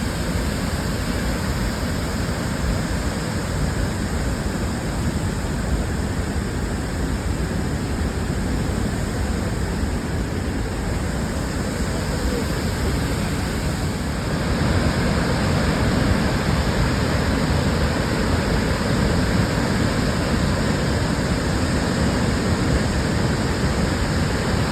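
Steady rush of Victoria Falls' water pouring down, a continuous roar that grows louder about halfway through.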